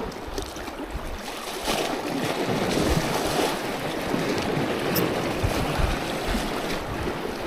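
Sea waves washing against a rocky shore, a steady rushing wash, with strong wind buffeting the microphone in low uneven rumbles that strengthen near the end.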